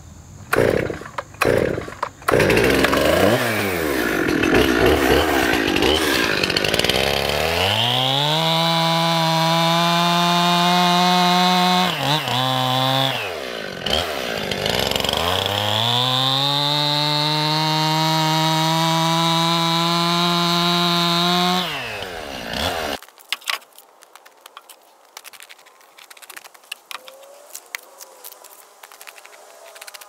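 Two-stroke Stihl chainsaw pull-started, catching about two seconds in, then run up to a high, steady full-throttle pitch while cutting through a red pine log, with a short drop in revs midway before it climbs again. The engine dies away and cuts off about three-quarters of the way through, leaving only faint ticks.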